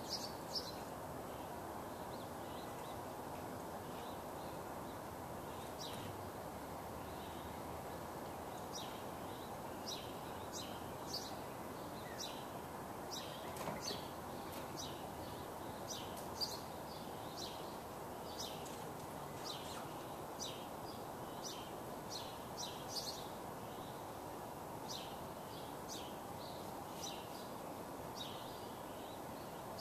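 Small birds chirping: short, high chirps, irregular and repeated, over a steady background hiss of outdoor ambient noise.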